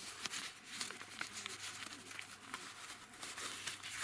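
Light rustling and crinkling with scattered small clicks and taps: papers and things on a table being searched through by hand.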